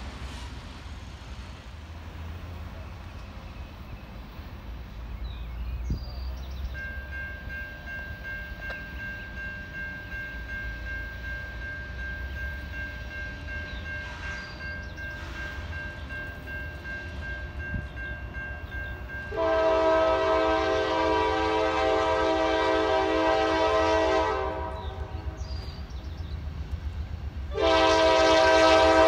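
Diesel freight locomotive's air horn sounding as it approaches: one long blast of about five seconds about two-thirds of the way in, and another starting near the end, over a low steady rumble of passing trains.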